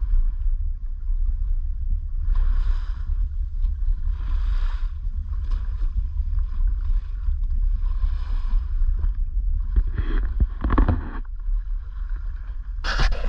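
Wind rumbling on the microphone over open water, with water lapping and splashing every couple of seconds. The splashing is stronger about ten seconds in and again near the end.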